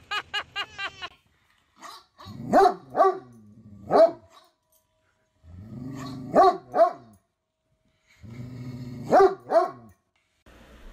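A dog barking in three bouts of two or three loud barks each, every bout opening with a low growl.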